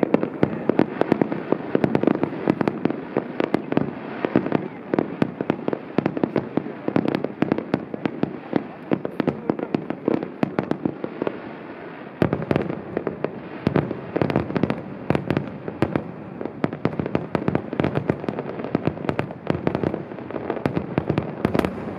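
Fireworks display: shells and low mines going off in rapid succession, a dense run of bangs and crackling over a continuous rumble. It eases briefly about halfway, then a fresh volley starts about twelve seconds in.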